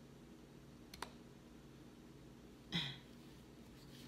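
Quiet room with a low steady hum. A faint sharp click about a second in, then a short breathy vocal sound from a woman near three seconds.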